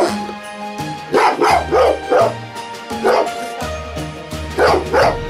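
A rubber duck squeak toy squeaking as it is squeezed, and a Cane Corso answering with short, falling barks and yips, over background music.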